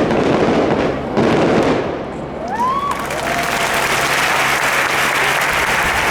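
Fireworks shells bursting with two loud blasts in the first second or so, then a large crowd applauding and cheering from about halfway, with a few short rising whistles.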